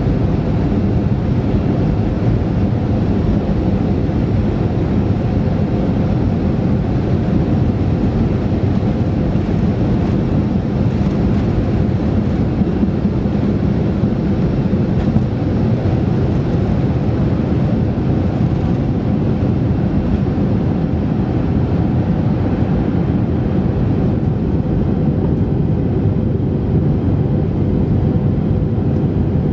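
Boeing 737-500 cabin noise through takeoff: the CFM56-3 turbofans running at takeoff thrust with runway rumble as the jet accelerates, lifts off and climbs. A loud, steady, low noise with a faint hum, its upper hiss thinning a little near the end.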